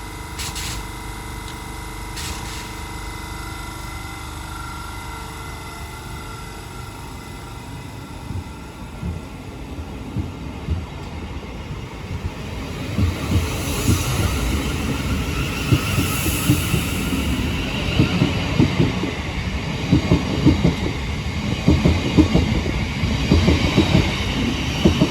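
Class 707 electric multiple unit moving through the station: a steady hum at first, then wheel clatter on the track that grows louder from about halfway through.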